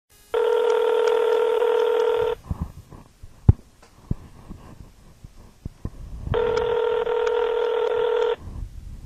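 Telephone ringback tone heard down the phone line: two rings, each about two seconds long and four seconds apart, as the outgoing call rings at the other end. A single sharp click falls between the two rings.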